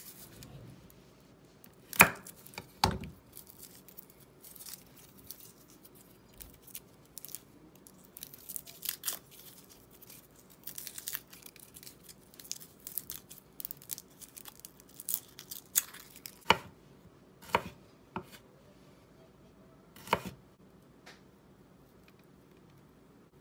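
A garlic clove's papery skin being peeled off by hand: soft crackling and tearing, with several sharp knocks on a wooden cutting board. The two loudest knocks come about two and three seconds in.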